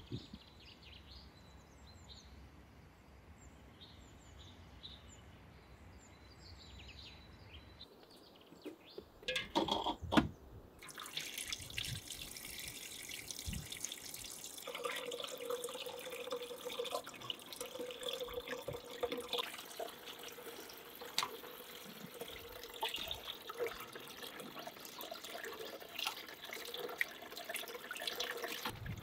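Faint bird chirps for the first several seconds, then a few loud knocks about ten seconds in. After that, water runs steadily from an outdoor brass tap, splashing into a metal bowl as raw meat is rinsed by hand.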